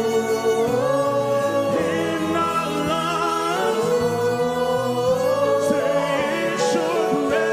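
Gospel worship song: singing voices holding long, gliding notes over steady instrumental accompaniment.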